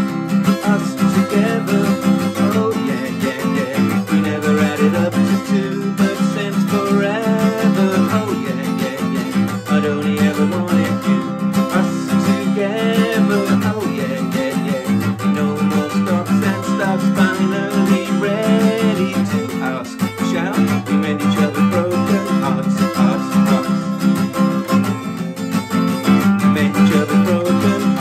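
Acoustic guitar strummed steadily, with a man singing in places.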